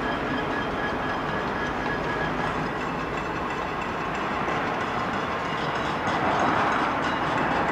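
Cacerolazo: many people banging pots and pans from apartment buildings all around, merging into a dense, continuous metallic clatter. A steady high tone stops about two seconds in, and the clatter swells somewhat louder about six seconds in.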